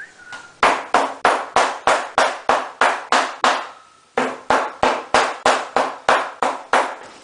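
A heavy knife chopping venison on a round wooden cutting board: sharp, even strokes about three a second, a run of about ten, a brief pause around the middle, then about nine more.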